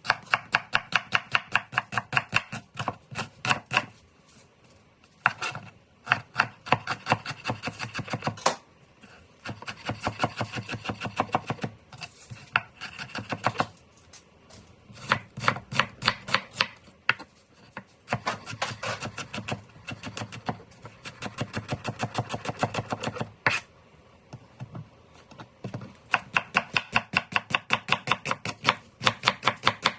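Kitchen knife chopping rapidly on a cutting board, several quick strokes a second, in runs of a few seconds with short pauses between them.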